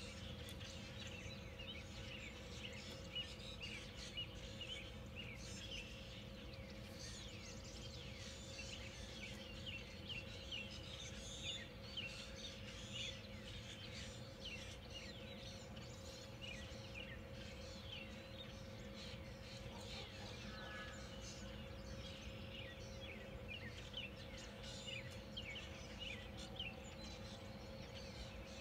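Mixed wild birds calling, with many short, quick chirps overlapping throughout, over a steady low hum.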